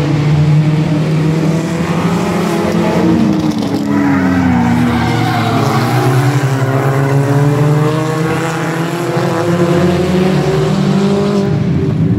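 A pack of compact stock cars racing past on an asphalt oval, their engines running hard. The engine pitch sweeps up and down through the middle as the pack goes by close.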